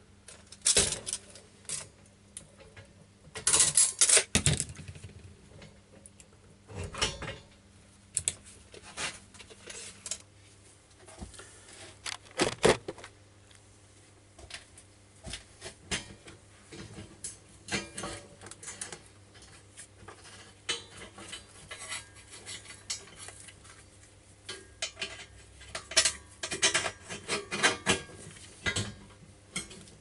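Metal tools and parts being handled at a workbench: irregular clinks, rattles and knocks, in short clusters of a second or so, over a faint steady low hum.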